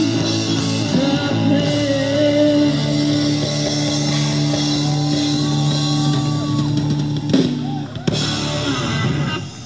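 Live rock band of electric guitars, bass and drum kit playing the closing bars of a song, holding a long sustained chord. A couple of drum hits come near the end, then the music stops.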